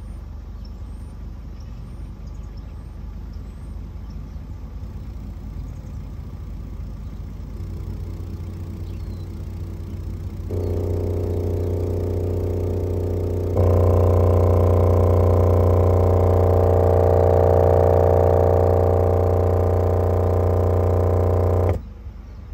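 A 10-inch Memphis car-audio subwoofer playing a 30 Hz test tone in free air with its cone flexing hard, turned up in three steps so the hum grows louder and buzzier with overtones, then cut off suddenly near the end. The sub is being driven toward failure in a power stress test.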